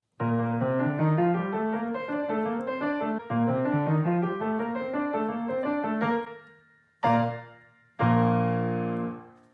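Piano music: a flowing run of notes for about six seconds, then two separate chords struck about a second apart near the end, each left to ring and fade.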